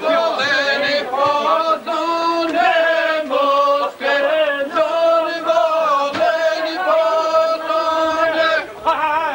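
A group of voices singing a slow, chant-like folk song together, holding long notes in phrases with short breaks between them.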